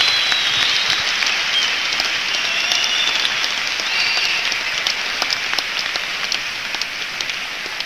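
Concert crowd applauding and cheering at the end of a song, with several whistles early on, the sound slowly fading away.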